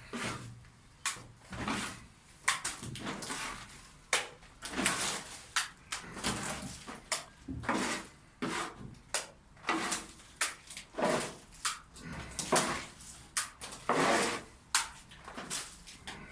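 Wet plaster being worked by hand with a tool: a run of irregular scraping and knocking strokes, roughly one a second.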